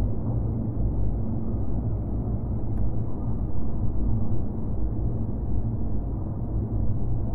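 Empty-city ambience: a steady, muffled low rumble with a faint low hum, like distant traffic heard from far off, and one faint tick about three seconds in.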